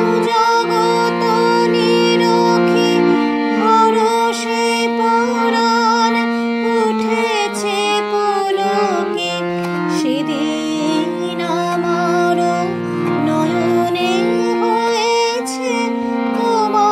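Music of a Bengali devotional song: an ornamented melody with slides and wavering over sustained low chords that change every few seconds.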